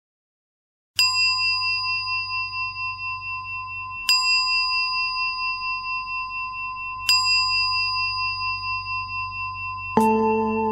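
A bell struck three times, about three seconds apart, each stroke ringing on with a clear, steady high tone. Just before the end a lower-pitched melodic chime begins.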